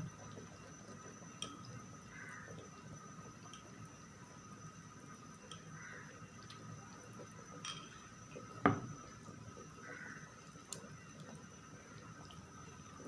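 Pot of fish curry with coconut milk simmering, with faint bubbling and drip sounds and a few light clicks. One sharp knock stands out about nine seconds in.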